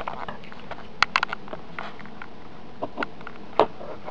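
Hands working at a retail box's cardboard and plastic packaging: scattered sharp clicks, snaps and crackles, a quick cluster about a second in and single snaps later. The box is proving hard to open.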